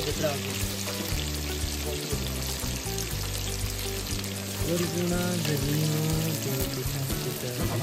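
Chicken pieces and tomato wedges frying in hot oil in a steel karahi: a steady sizzling, crackling hiss of bubbling oil.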